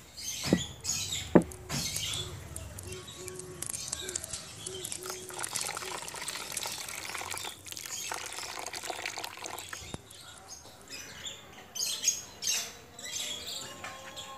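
Water poured onto a plate of raw chicken livers, splashing and trickling over the meat, after two sharp knocks in the first second and a half. A bird calls in the background with a run of short repeated notes.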